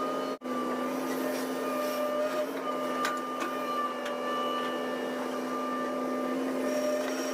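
Excavator running steadily, a continuous machine hum and whine with a few held pitches, broken by a brief dropout about half a second in.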